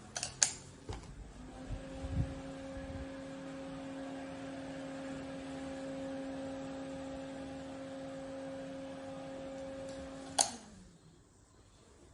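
A steady electrical hum with a second, higher tone starts after a couple of clicks about a second in, runs for about nine seconds and stops after a sharp click near the end.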